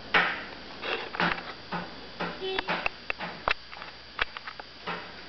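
Baby walker in use: irregular clicks, knocks and rattles, about one or two a second, as it is rolled and knocked about.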